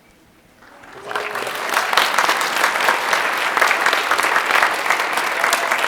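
Audience applauding in a hall: a brief hush, then clapping that starts about a second in, swells quickly and holds steady.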